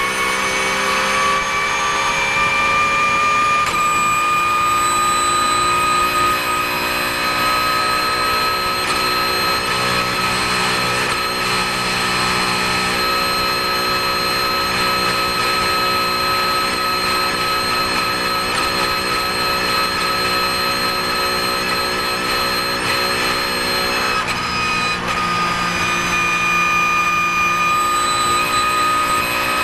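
Porsche 991 GT3 Cup race car's flat-six engine at full throttle, heard from inside the cockpit, with a strong high whine over it. The pitch climbs slightly as speed builds in the first few seconds, then holds nearly steady; near the end it dips as the car slows.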